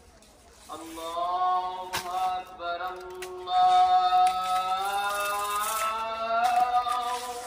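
A male voice singing long, slowly gliding held notes, beginning about a second in, with a couple of sharp clicks under it.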